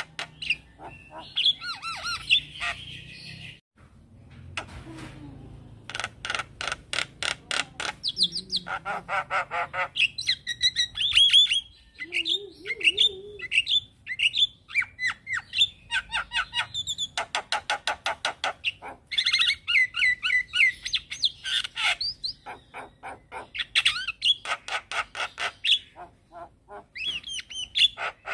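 Javan myna singing a loud, varied chattering song: fast rattling trains of clicks alternate with squeaky, wavering whistles, in bursts with short breaks.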